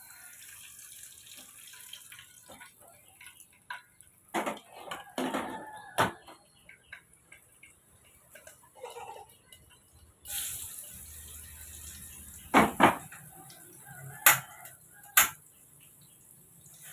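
Kitchen work: pots, pans and utensils clattering and clinking, with several sharp knocks, over a steady hiss that stops for a moment about ten seconds in and comes back louder.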